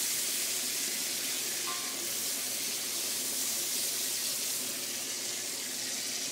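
Pork sizzling in a hot cast iron wok, a steady hiss of frying.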